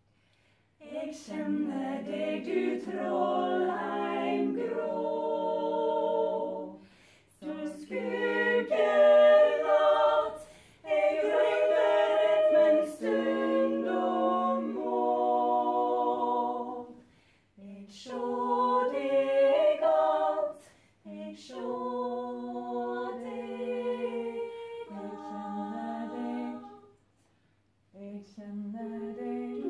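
A small group of women singing a cappella, without accompaniment, in held phrases separated by short pauses.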